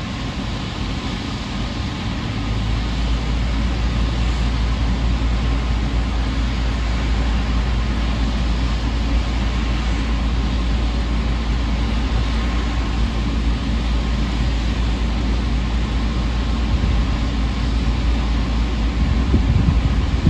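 A ship's engine running with a deep steady rumble heard from on deck, growing louder about two seconds in, under a steady rush of wind and churning water.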